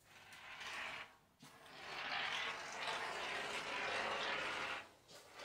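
Expanding foam being dispensed from a pressurised can in spurts of hissing: a short one of about a second, then a longer one of about three seconds, then another short one near the end.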